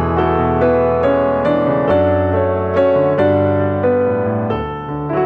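Background music: a piano playing a slow melody over sustained chords.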